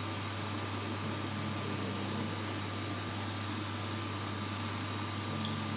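Steady low hum of a running kitchen appliance motor, with an even hiss over it.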